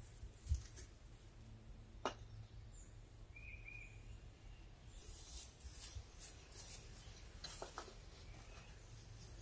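Faint knocks, clicks and scrapes of bricks being handled and set in place as garden-bed edging: a dull thump just after the start, a sharp knock about two seconds in, and a run of small clicks in the second half. A short bird chirp comes about three and a half seconds in, over a low steady hum.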